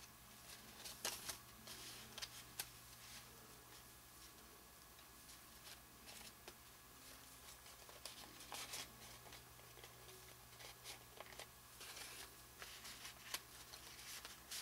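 Faint rustling and crinkling of folded origami paper as modular units are handled and their flaps pushed into one another's pockets, in scattered short bursts, a few louder ones about a second in and again a little past the middle.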